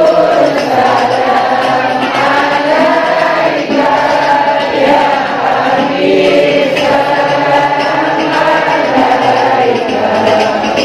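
Many voices singing an Islamic devotional chant together like a choir, steady and continuous without a break.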